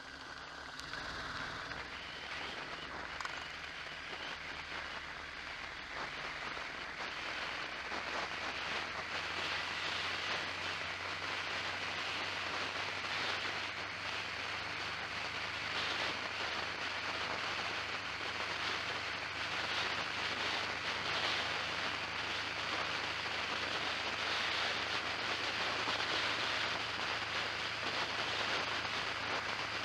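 Steady rushing hiss of wind and road noise from a vehicle on the move, with a low steady engine hum underneath, growing gradually louder over the first ten seconds or so.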